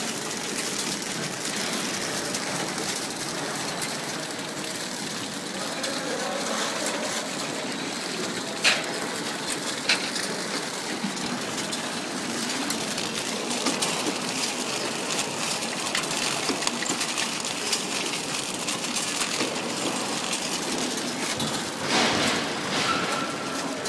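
Packaging machinery running: a steady mechanical hiss and clatter, with two sharp clicks about a second apart near the middle and a short louder stretch of noise near the end.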